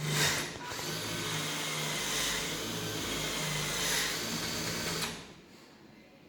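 Electric drill running steadily for about five seconds, then stopping.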